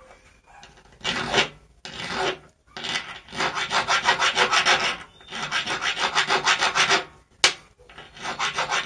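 Small hand file rasping on the metal cam piece of a manual impact screwdriver, in quick short strokes of about six or seven a second, in several runs with brief pauses, cleaning up an edge worn by the pin. A single sharp click falls between two runs near the end.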